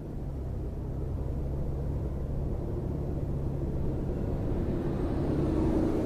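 Lexus RX 450h hybrid SUV driving, heard from inside the cabin: a steady low rumble of road and tyre noise that grows slowly louder.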